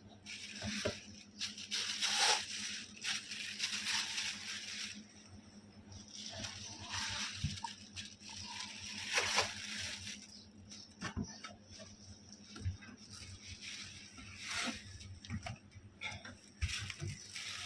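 Packaging of a new rechargeable fan being opened and handled by hand: repeated bursts of rustling and crinkling, with scattered light knocks and clicks.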